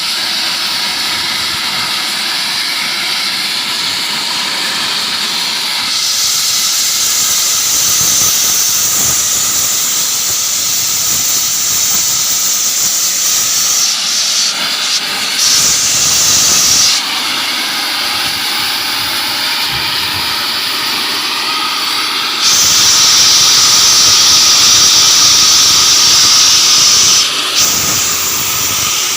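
High-pressure steam venting from an AAC block autoclave as it releases its pressure: a loud, continuous hiss. The hiss grows louder and sharper twice, for about ten seconds from around six seconds in and for about five seconds later on, then falls back each time.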